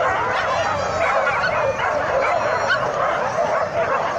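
A pack of leashed dogs yelping, whining and barking together in a steady, dense chorus of overlapping high calls.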